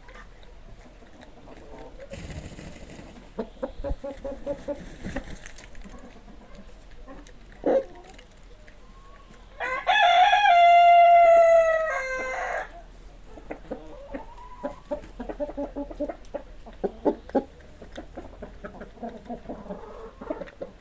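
Chickens clucking in short repeated calls, and about halfway through a rooster crows once, a loud long cock-a-doodle-doo lasting around three seconds.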